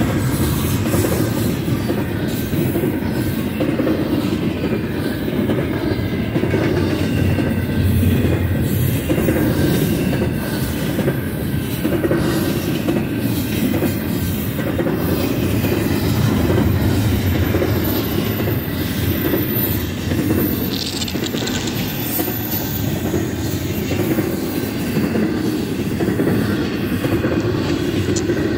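Double-stack intermodal container cars of a BNSF freight train rolling past: a steady rumble and clatter of steel wheels on rail.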